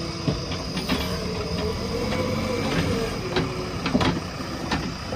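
JCB backhoe loader at work: the engine runs steadily under scattered metallic clanks and knocks from the loader.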